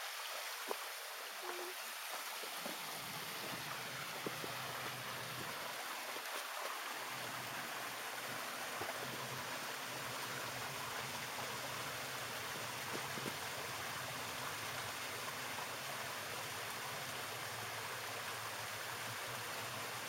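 Small waterfall and rocky creek: a steady rush of falling and running water.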